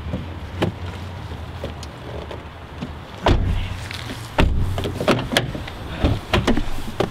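Car doors being shut, with two heavy thuds about three and four and a half seconds in, followed by lighter clicks and knocks of door and latch handling.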